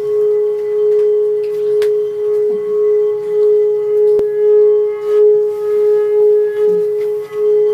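Singing bowl holding one steady ringing tone, with fainter higher overtones above it and a slow waver in loudness. One or two faint clicks.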